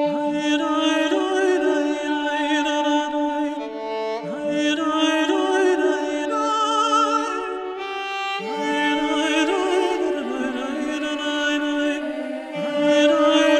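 Background music: a slow melody with vibrato over held notes, in phrases that start about every four seconds.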